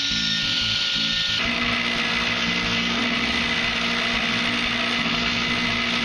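Power grinder running steadily as it grinds the steel between the tines of a hand-forged fork; its sound changes about a second and a half in.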